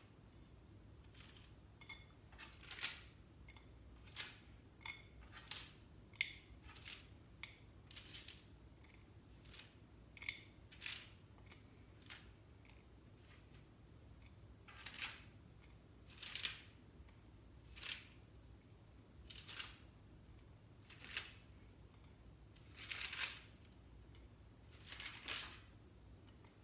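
Hardened chocolate-coated Wheaties clusters being picked off a tray one at a time and set on a plate: a string of faint, crisp clicks and short scrapes, roughly one a second, the later ones a little longer.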